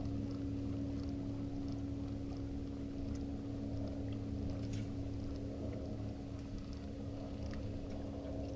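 Boat motor running at low speed: a steady, even hum that does not change, with a few faint ticks over it.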